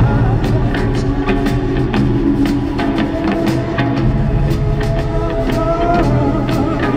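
Live rock band playing an instrumental stretch between sung lines: a steady drum kit beat with crisp, evenly spaced hits over held, sliding instrumental tones and a bass line.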